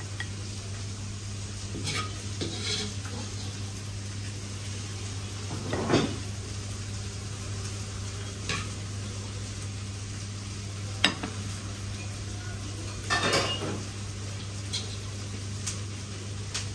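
Chilli stir-fry sizzling in a pan while a metal ladle stirs and scrapes it, with a few sharp clinks of metal on the pan over a steady low hum.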